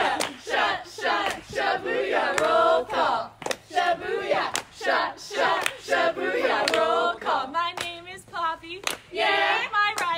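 Group of women chanting a call-and-response song, with hand claps about twice a second.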